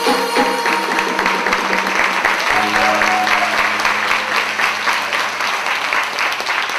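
Audience applauding at the end of a Korean traditional music piece. The ensemble's last few drum strokes sound at the start, and a low held note runs under the clapping for about three seconds in the middle.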